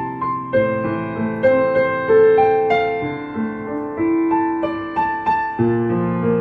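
Slow, gentle piano music: single notes and soft chords struck one after another over held low bass notes, each note ringing and fading.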